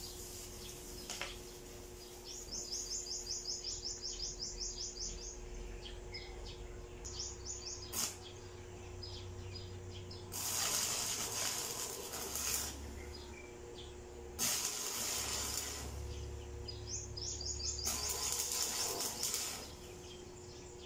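Electric arc welding on a steel pipe: the arc crackles and hisses in three runs of about two seconds each, starting about ten seconds in. Earlier a bird gives a quick run of high chirps.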